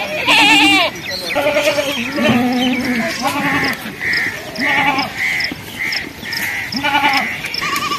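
Several goat kids bleating repeatedly, overlapping calls of different pitches with a wavering tremble. A run of short high calls repeats about twice a second through the second half.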